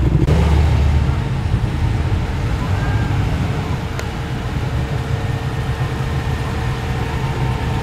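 Muscle car engines running as cars roll slowly past at low speed. The engine sound is loudest in the first second as one car passes close, then settles to a steadier, lower run from the following cars.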